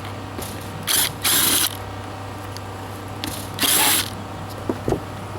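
Ratchet wrench clicking in three short spells as screws of a camper roof vent are backed out, with a few light clicks between.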